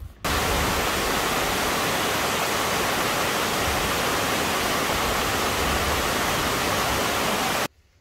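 Mountain waterfall cascading over rocks: a steady, loud rush of water that starts abruptly and cuts off suddenly near the end.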